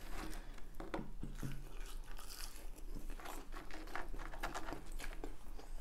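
Close-up eating sounds: chewing with a run of small crunches and mouth clicks as McDonald's fries and chicken nuggets are eaten.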